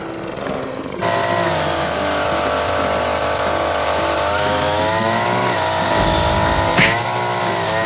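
Two-stroke engine of a Koshin push lawn mower running, picking up speed and getting louder about a second in, then running steadily with a slight waver in pitch.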